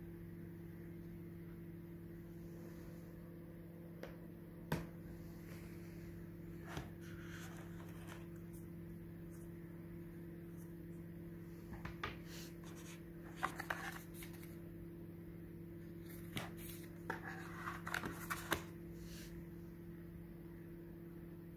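Handling noise of a cardboard phone box and its packaging: scattered soft clicks, taps and rustles as the box parts and the paper-wrapped cable are picked up and set down, most of them in the second half. A steady low hum lies underneath.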